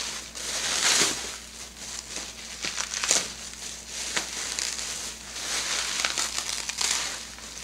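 Clear plastic packaging crinkling and rustling in irregular bursts as it is handled.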